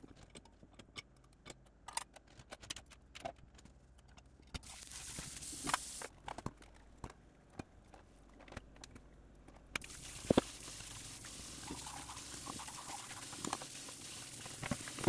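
Hand-washing dishes at a stainless steel kitchen sink: light clinks and knocks of dishes and baby-bottle parts. The tap runs briefly about five seconds in and again from about ten seconds on, with a sharper knock just after it comes back on.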